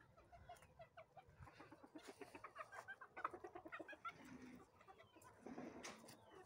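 A flock of chickens clucking faintly, many short repeated clucks overlapping, busiest in the middle.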